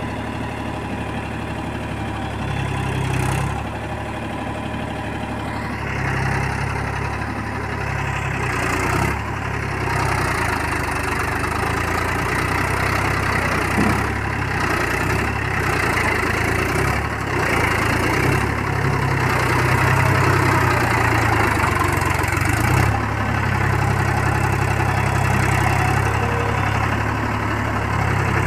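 Diesel tractor engine running steadily as the tractor churns through a flooded paddy field on iron cage wheels, growing louder toward the end as it comes closer.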